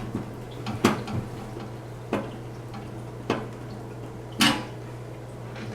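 Small hard objects knocking and being set down: four sharp clacks roughly a second apart, the last the loudest, over a steady low hum.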